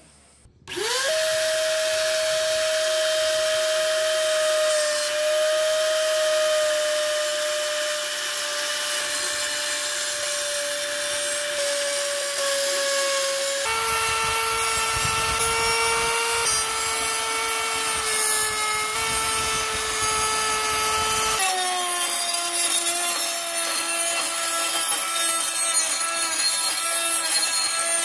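Electric grinder spinning up with a quick rising whine, then running steadily with a high whine over a hissing grind of metal. The whine drops in pitch in two steps, about 14 and 21 seconds in.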